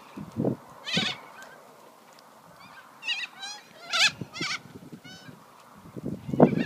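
A flock of corellas calling with harsh, screeching squawks. The calls come scattered and overlapping, busiest about three to four and a half seconds in.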